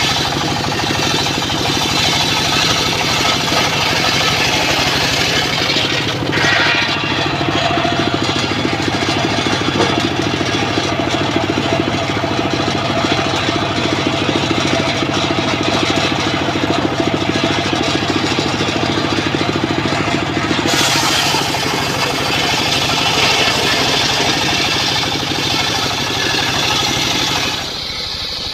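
Engine-driven homemade circular saw bench running and ripping a log lengthwise: the blade's cutting noise over the engine's steady drone. The sharp top of the cutting sound falls away about six seconds in and returns about twenty seconds in, and the level drops slightly near the end.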